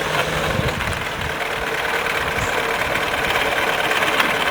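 1926 Morris Cowley's four-cylinder engine running on the bare rolling chassis, a steady fast mechanical chatter that grows a little louder near the end. The engine runs clean, without smoke.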